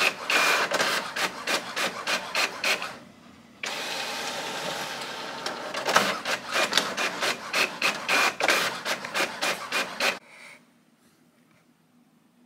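Rhythmic rasping strokes, about three a second, broken by a couple of seconds of steady rushing noise, then stopping about ten seconds in.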